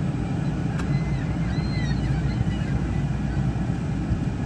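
Steady low rumble of a car idling, heard from inside the cabin, with a few faint high seagull cries about one to two seconds in.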